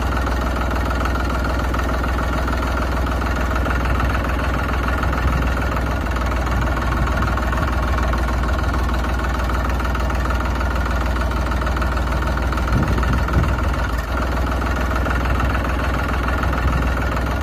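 Tractor engine idling steadily, a continuous low rumble with no change in speed.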